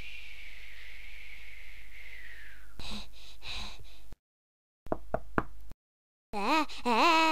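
Three quick knocks on a cartoon wooden door, then a high voice calls out with a wavering pitch. Before the knocks there are a faint falling hiss and two short breathy sounds.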